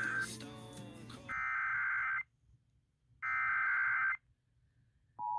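Emergency Alert System header: after a brief jumble of tones, two data bursts of about a second each sound a second apart. Just before the end the steady two-tone attention signal starts, announcing a new tornado warning.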